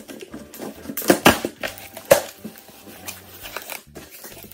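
Large cardboard shipping box being opened by hand, its flaps and tape crinkling and scraping irregularly, with sharper rasps about a second in and again about two seconds in.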